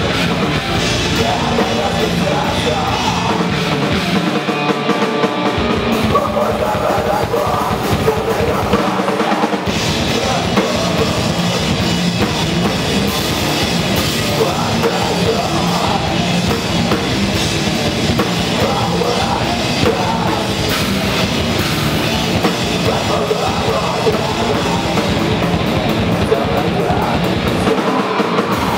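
Loud live heavy rock band playing: a drum kit, an electric bass and guitar, all heard together through the room. The low bass drops out briefly about four, nine and twenty-eight seconds in.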